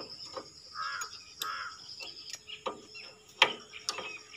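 Spanner clicking against metal while the lock nut on a power tiller's side-clutch cable adjuster is tightened: a few sharp clicks in the second half, one much louder about three and a half seconds in. Two harsh bird calls about a second in.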